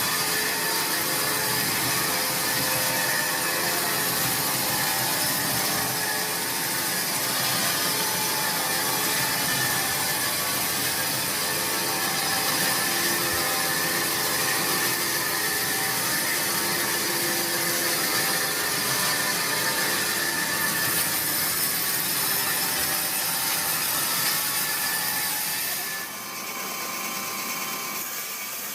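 Sawmill saw running and cutting through a hard teak log, a loud steady machine noise with a whine of steady tones. The sound drops and thins out near the end.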